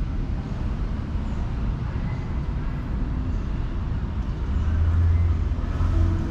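Steady low rumble of outdoor background noise, swelling louder about four and a half seconds in and easing off just before the end.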